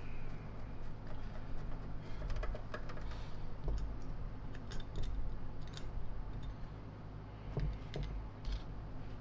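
Scattered light metallic clicks and rattles of small screws and parts being picked over in a metal parts tray and handled with a screwdriver, over a steady low hum.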